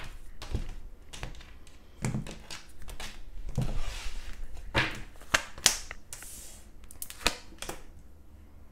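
Tarot cards being shuffled and handled: irregular rustling with sharp clicks and taps of the cards.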